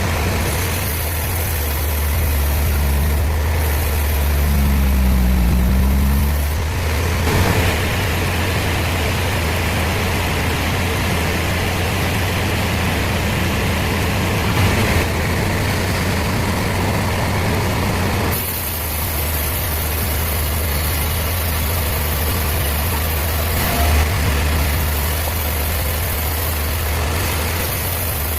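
A heavy engine running steadily at low speed, with a deep hum. The sound shifts abruptly twice, about seven and eighteen seconds in.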